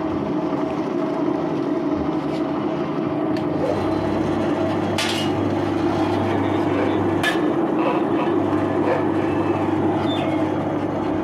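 Engine-driven grinding mill running steadily, with two sharp clicks about five and seven seconds in.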